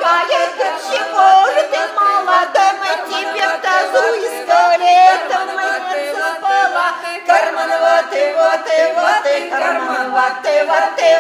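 A small group of women's voices singing a folk song unaccompanied, several voices together in close harmony, the notes bending and held.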